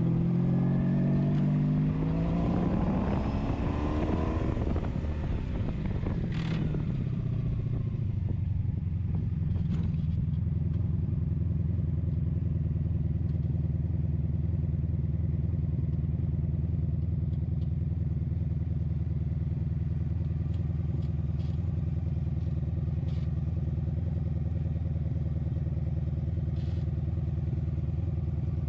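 1983 Honda Sabre's V4 engine under way, rising in pitch as it accelerates for about five seconds, then dropping back and running at a steady, even drone for the rest.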